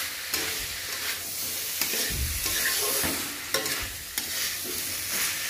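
Diced potato and elephant foot yam frying in masala in a kadhai, stirred with a spatula: a steady sizzle with the spatula scraping and knocking against the pan several times.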